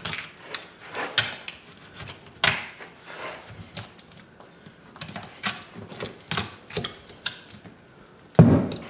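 A knife cutting and scraping boiled meat off a longhorn bull skull, with irregular clicks and scrapes of the blade on bone. There is a heavier thump near the end.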